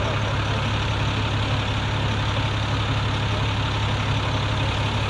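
Fire engine's diesel engine idling with a steady low hum and no change in speed.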